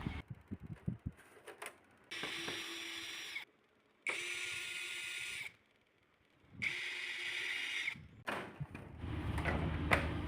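Daikin inverter AC indoor unit's blower running with a whirring rattle, heard in three short stretches, each about a second and a half long and cut off sharply, with scattered clicks before and after. The rattle comes from something caught in the blower wheel and striking it as it turns, a lizard.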